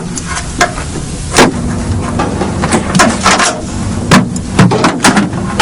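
Several sharp knocks a second or so apart over a steady low hum, the sound of someone working to force open the enclosure where people are trapped.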